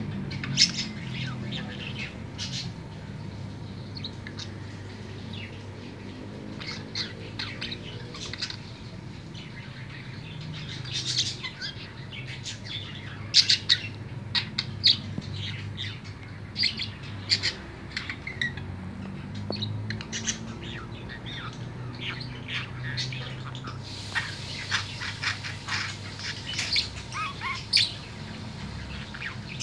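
A green male budgerigar warbling: a continuous run of short chirps, clicks and chatter, busier in the last few seconds.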